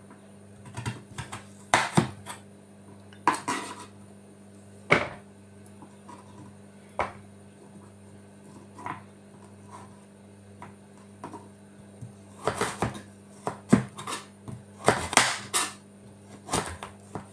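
Kitchen knife slicing carrots on a bamboo cutting board: uneven sharp knocks of the blade striking the board, bunched at first and again toward the end. The hard bamboo board makes the chopping really noisy.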